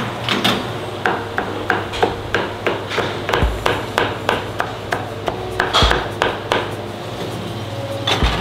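Cleaver chopping on a chopping board: quick, even strikes at about three a second that stop after some six seconds, then two more near the end.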